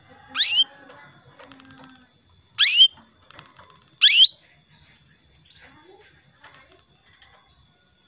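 Female canary calling: three short calls, each rising sharply in pitch, in the first half, then only faint soft chirps. These are the calls used to draw a male canary into song.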